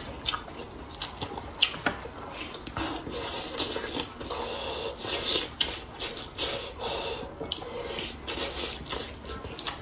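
Wet chewing and lip smacking of soft steamed pork coated in rice flour, with many short irregular clicks and squelches.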